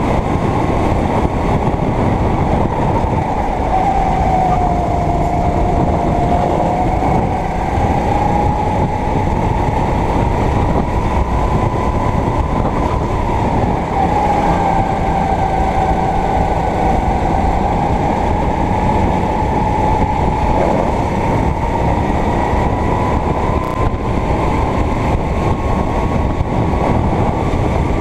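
Go-kart engine running hard while lapping, its pitch dipping twice and climbing back as it slows and accelerates again, over a dense rushing noise.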